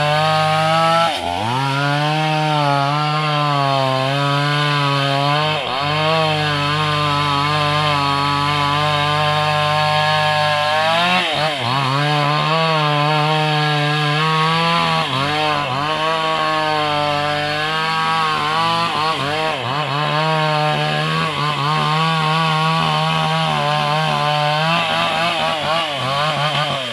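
Chainsaw running at high revs while cutting into a tree. Its pitch dips briefly about five times and then recovers.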